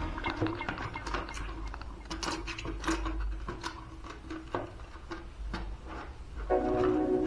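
Irregular light clicks and taps, like small hard parts and a hand tool being handled during electrical board work. Background music comes in near the end.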